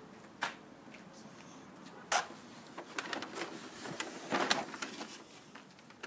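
Handling noises from a model airplane and its box: scattered knocks, clicks and scrapes, the sharpest about two seconds in and a cluster a little past four seconds.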